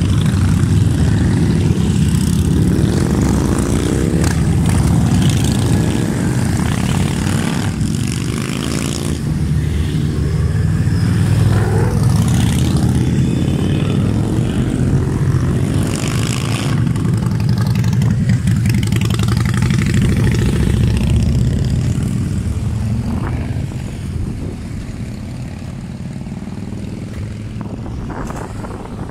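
A stream of motorcycles, many of them cruisers, rumbling past one after another as they slow and accelerate through a roundabout, engine pitch rising and falling. The sound thins out and gets quieter over the last few seconds as the procession tails off.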